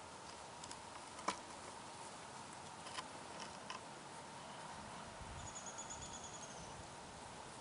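Quiet background with a steady faint hiss and a few small sharp clicks, about a second in, at three seconds and just after; a faint thin high whistle sounds for about a second past the middle.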